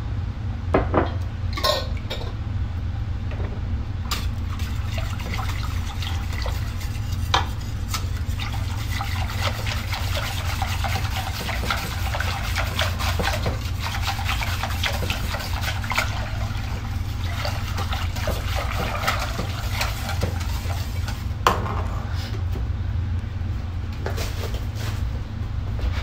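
A wire whisk stirring thick milk sauce in a large metal pot: steady liquid sloshing and swishing, with a few sharp clinks of metal against the pot, over a constant low hum.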